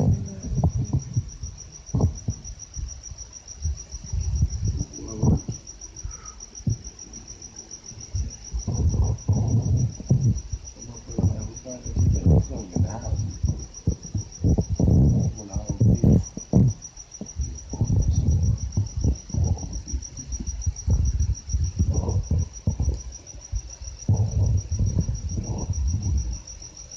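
Cricket singing a steady, high, continuous trill, over irregular low thumps and rumbles.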